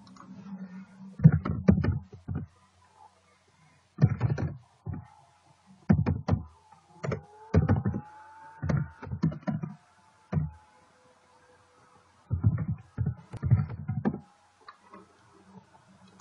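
Computer keyboard typing in several bursts of clicking keystrokes, with short pauses between them.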